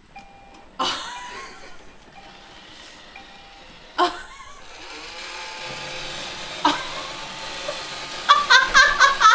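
Roomba robot vacuum beeping once as it starts up, then two sharp knocks, about a second in and about four seconds in, then its motor and brushes running with a steady hum that grows louder. A burst of high-pitched voice near the end.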